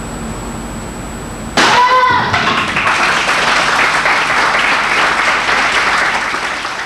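A sharp crack and a short yell (kiai) as four boards are broken with a side kick about a second and a half in, followed by the spectators clapping for about four seconds.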